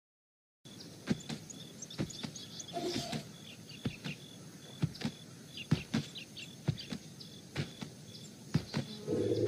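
Outdoor ambience with birds chirping. Under it is a regular heavy thud about once a second, the footfalls of a walking elephant. A louder, rougher noise comes in near the end.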